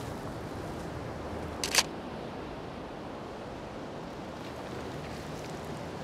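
A single DSLR camera shutter release, a sharp quick double click (mirror and shutter), about a second and a half in. It sits over a steady soft hiss of outdoor ambience.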